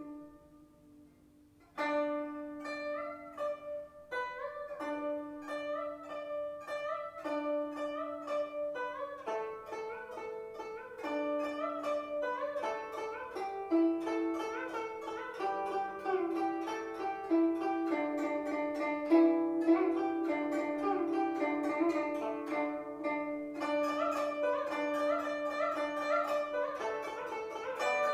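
Solo guzheng music: after a brief hush, plucked zither notes begin about two seconds in and run on as a flowing melody, some notes bent in pitch.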